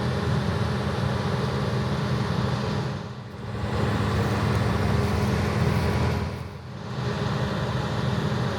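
John Deere 9610 combine harvester running in the field: a steady, heavy engine and machinery drone that dips briefly twice.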